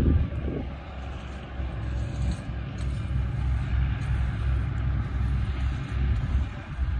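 GE 44-ton diesel locomotive running as it approaches, an uneven low rumble. The tail of a whistle blast dies away in the first half second.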